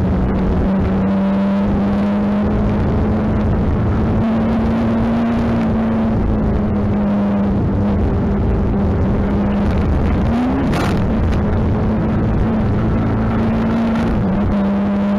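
Rally car engine heard from inside the cockpit, running at nearly steady revs with gravel and road noise under it; the revs flick up briefly about ten seconds in.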